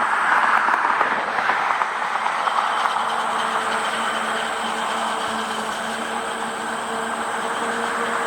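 Steady running noise of a vehicle: a continuous rush with a faint steady hum underneath.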